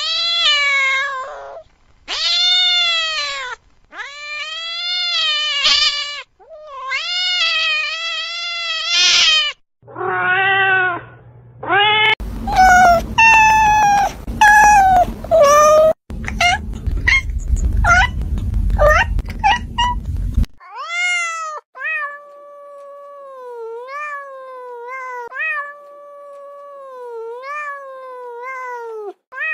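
Cats and kittens meowing. First comes a run of loud, drawn-out meows, each rising and then falling. Next, meows sound over a low rumbling noise, and for the last eight seconds or so a kitten gives quieter, short, high mews about once a second.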